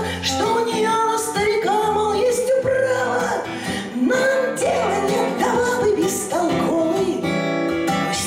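A woman singing a Russian bard song, accompanied on acoustic guitar.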